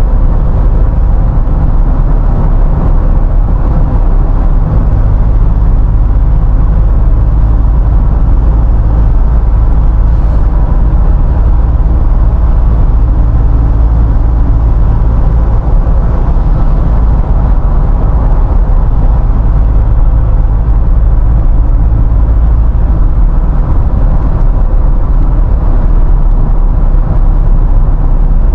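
Steady low road and engine rumble heard inside a Nissan Navara pickup's cabin while cruising on an expressway, with no sudden events.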